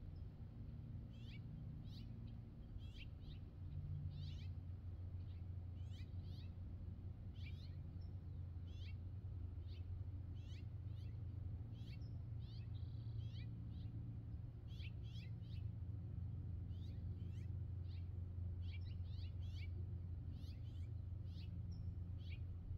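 Small birds chirping: short, thin, falling chirps come one or two a second, over a steady low hum.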